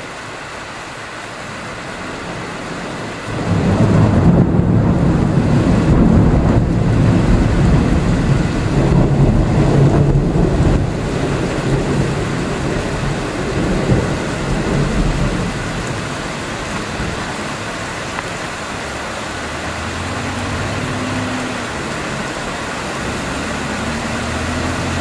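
A long rolling peal of thunder begins a few seconds in and stays loud for about twelve seconds before dying back to a steady low rumble and hiss.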